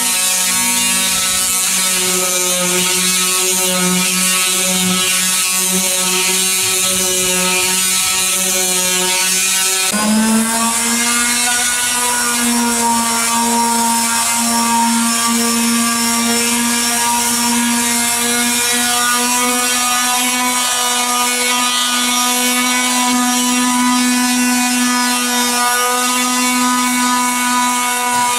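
Electric palm sanders running steadily, sanding the painted steel body of a fire truck, with a constant buzz. About ten seconds in, a second sander takes over at a slightly higher pitch.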